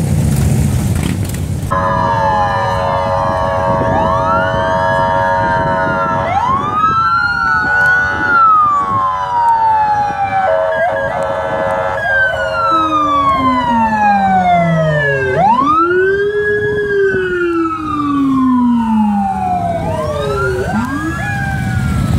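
Police car sirens wailing: several overlapping sweeps that rise quickly and fall slowly, one much lower in pitch, after a steady held tone in the first half. Under them runs the low rumble of motorcycle engines.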